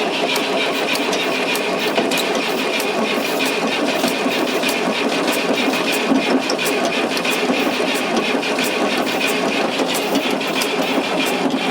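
Fordson Super Major's 3.6 L diesel engine cranked on the starter for nearly twelve seconds without catching: a steady, even churn of compression strokes that cuts off suddenly.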